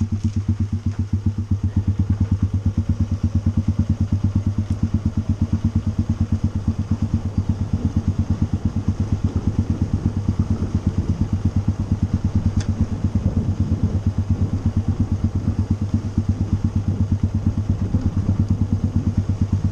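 Motorcycle engine running steadily while riding along, with an even, rapid pulsing beat.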